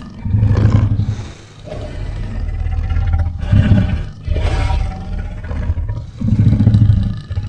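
Creature sound effects for a monster: several deep roars and growls in a row, each a second or so long, separated by short breaks.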